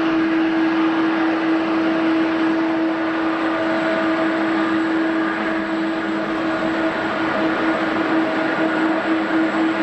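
Jet airliner engines running steadily: an even rush with a constant hum held underneath, without rising or falling.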